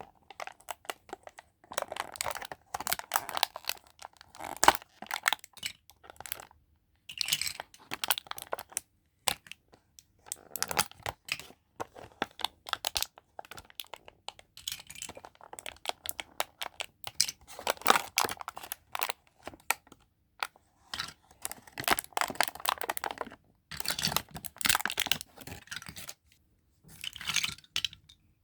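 Packaging being unwrapped and handled: bursts of crinkling and tearing, a second or two each with short pauses between, dotted with sharp clicks and taps.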